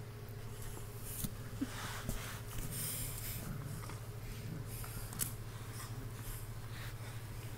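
Puppies tugging and chewing on a rope toy on a rug: irregular scuffling and rustling with a few sharp clicks, over a steady low hum.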